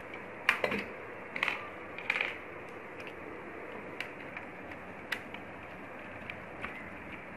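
Clicks and knocks of small metal and plastic parts being handled while a projector is taken apart: a cluster of knocks in the first couple of seconds, then a few single ticks, over a steady hiss.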